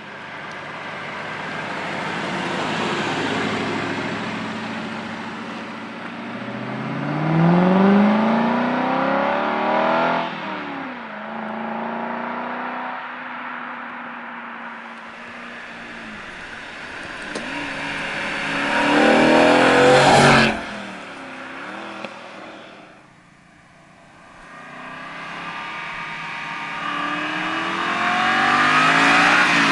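Aston Martin V8 Vantage's V8 engine and sports exhaust under hard acceleration, the pitch climbing in long sweeps and falling back at each shift or lift. About two-thirds through, a loud peak cuts off sharply and the engine goes quiet for a moment. It then builds again near the end.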